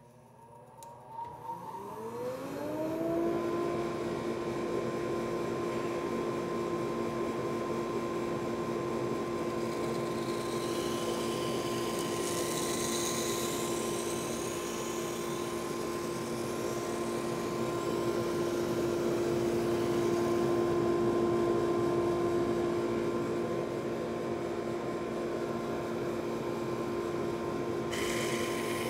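SuperMax 19-38 combo drum/brush sander with a wire brush head spinning up, its whine rising over the first few seconds, then running steadily. A harsher scratchy hiss joins from about ten to fifteen seconds in as a weathered barn board passes under the wire wheel.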